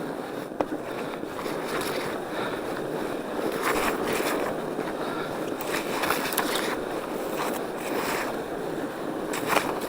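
Norco Bigfoot fat bike's tires rolling over packed snow: a steady crunching rush with a few sharper clicks and knocks.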